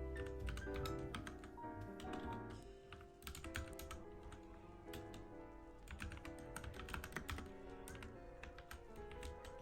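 Typing on a mechanical keyboard: a running patter of key clicks, thickest in the second half, over background music.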